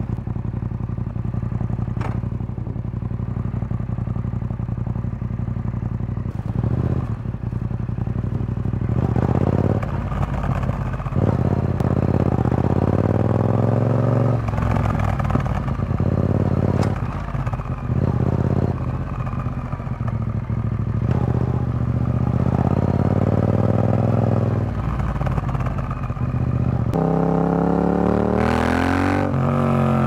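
Yamaha XSR700's parallel-twin engine through an Akrapovic carbon full exhaust system with the dB killer in. It runs steadily at low revs for the first several seconds, then revs up in a series of rising pulls with short drops in pitch between them. Near the end it climbs once more and falls away.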